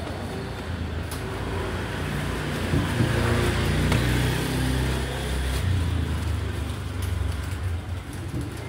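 A motor vehicle's engine running close by, swelling to its loudest a few seconds in and then slowly easing off, over steady street traffic noise.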